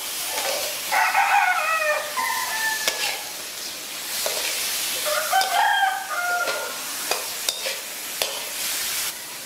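Prawns sizzling in a wok while a metal spatula stirs and scrapes them, with a few sharp knocks of the spatula on the pan. A rooster crows twice, about a second in and again about five seconds in.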